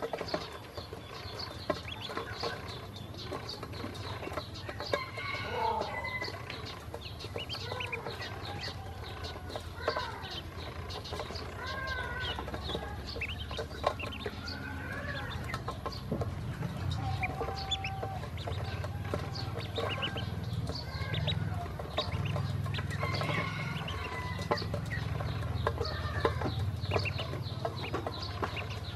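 Ducklings peeping in short calls while their bills tap and peck at seed feed in a stainless steel bowl, making many quick clicks, over a steady low rumble.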